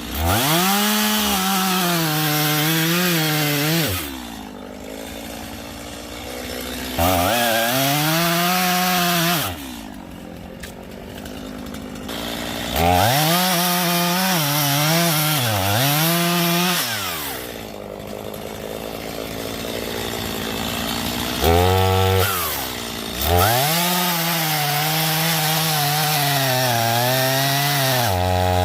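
Gas chainsaw revving up and cutting wood in four long bursts of a few seconds each, plus a short blip, dropping back to idle between them. Its pitch wavers and sags while the chain is in the cut.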